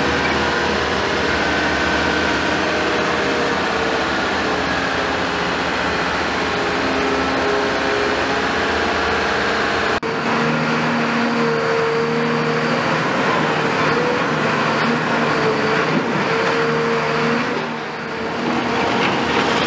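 Heavy diesel engine of a mobile crane truck idling steadily. After a sudden cut about halfway through, a Caterpillar crawler excavator's diesel engine runs with its note rising and falling as the machine works.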